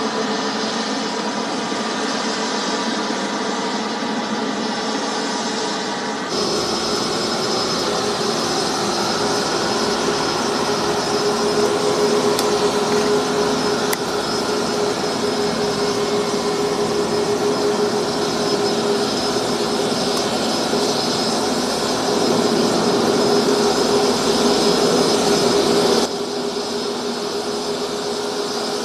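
Jet airliner engines running at taxi, a C919 with CFM LEAP-1C turbofans: a steady rushing noise with a held whine. The sound changes abruptly about six seconds in and again near the end.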